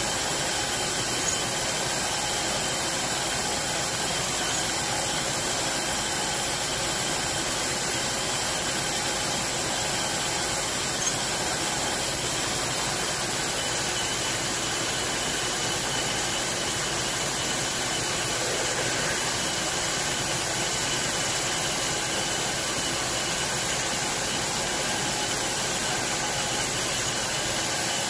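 CNC milling machine drilling into threaded metal parts with a twist drill: a steady spindle whine under a constant hiss of the air-mist coolant spray.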